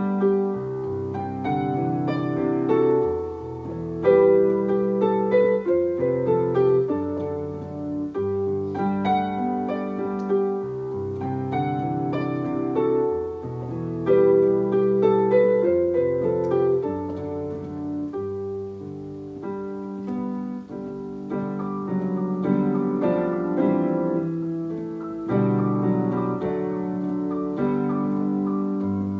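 Piano played with both hands: a continuous flow of melody notes over low bass notes and chords.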